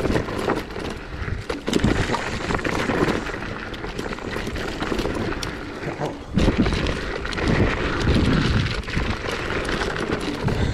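Zero 10X electric scooter riding over a rough dark gravel trail: tyres crunching on loose stones and the scooter rattling, with heavier thumps over bumps about two seconds in and again from about six to nine seconds, and wind noise on the microphone.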